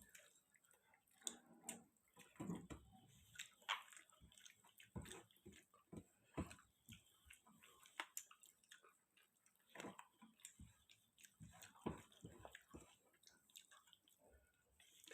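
Faint sounds of a person eating: chewing with short clicks and smacks at irregular intervals.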